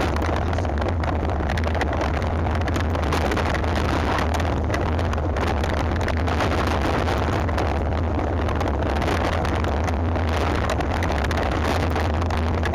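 Wind buffeting the microphone and the mountain bike rattling and knocking over a rough trail at speed on a downhill run: a loud, steady rumble with constant small knocks.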